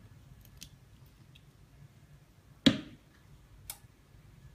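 A few sharp clicks and ticks, one much louder than the rest about two-thirds of the way through, over a faint low hum.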